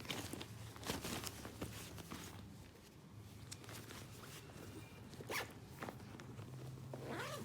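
A zipper being pulled in short, quick strokes, with rustling of fabric or a bag in between.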